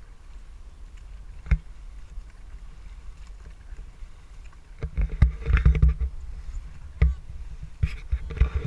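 Dragon boat under paddle: a steady low rumble of wind and water on the microphone. A sharp knock comes about a second and a half in, a clatter of knocks and splashes from about five to six seconds, another knock at seven seconds and more clattering near the end.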